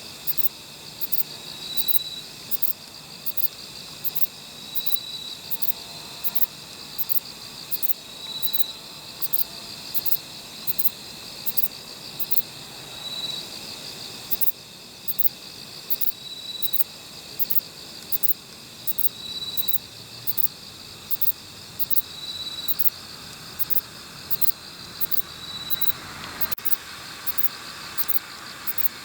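Kobane-himegisu (Chizuella bonneti), a short-winged katydid, singing: short, dry, high-pitched chirps repeated evenly about one to two times a second, with a brief pause about halfway. A separate short tone sounds every few seconds behind it.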